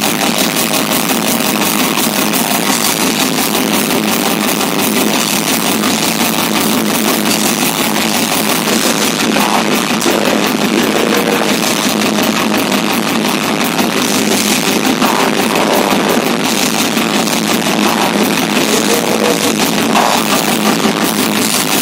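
Metal band playing live: electric guitars and drums in a loud, dense, unbroken wall of sound.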